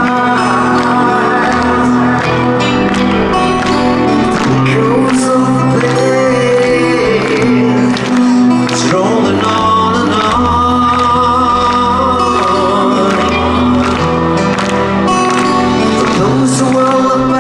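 Rock band playing live: a male singer over electric guitar, with steady drum and cymbal hits.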